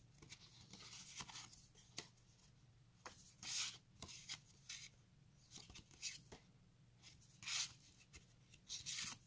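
Paper journaling cards rustling and sliding against one another as a small stack is handled and shuffled, in short faint swishes with a few light ticks.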